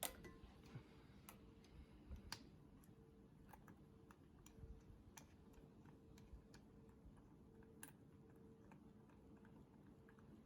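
Near silence: faint room tone with a low steady hum and scattered faint clicks.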